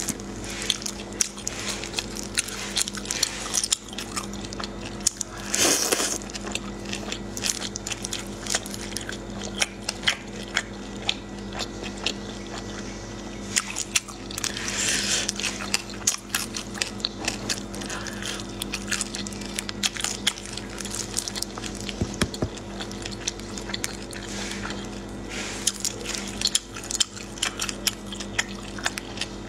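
Close-miked eating of sauce-braised snails and potato: wet chewing, lip smacks and many small mouth clicks, with three longer wet, slurpy stretches, over a steady low hum.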